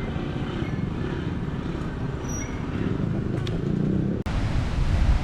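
Steady road traffic noise of passing cars and motorcycles. About four seconds in it breaks off suddenly and gives way to louder wind buffeting on the microphone.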